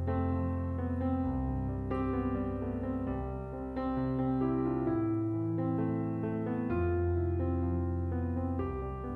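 Background piano music, sustained notes and chords changing every second or so.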